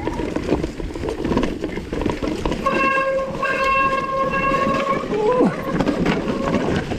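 Vitus mountain bike's disc brakes squealing under braking: a steady high-pitched tone with overtones for about two and a half seconds from midway, with a short break, then a brief falling squeal, over continuous rattling ride noise.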